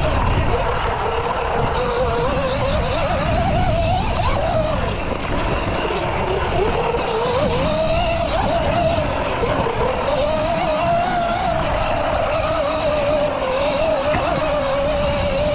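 Electric dirt bike's motor whining, its pitch rising and falling again and again with the throttle, over a steady low rumble.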